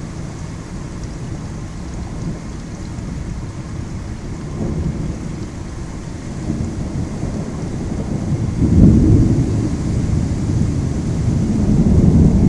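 Thunder rumbling through an ongoing lightning storm, swelling to its loudest about two-thirds of the way through and building again near the end, over the hiss of light rain.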